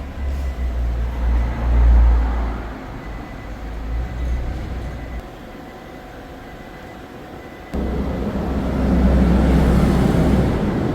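Steady low mechanical running noise, with a quieter stretch in the middle and a sudden step up to a louder, fuller steady noise about eight seconds in.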